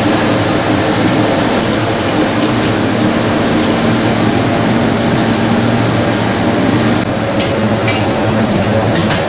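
Steady roar of a commercial gas wok range running, the burner flame and its blower heating oil in a wok, with a low hum under the noise. A few light clicks come near the end.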